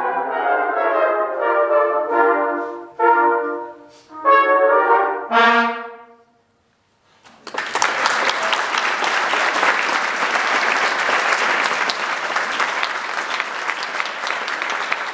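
Brass band with its cornet section to the fore, playing the last phrases of a swing number in short punchy chords and ending on a final chord that dies away about six seconds in. After a moment of silence, an audience applauds steadily.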